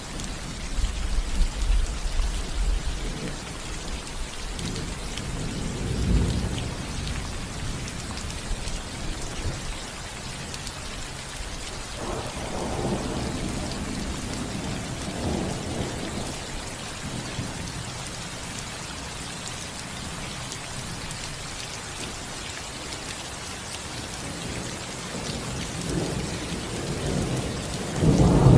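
Steady rain falling on a roof, with rolls of thunder rumbling low several times, the loudest near the end.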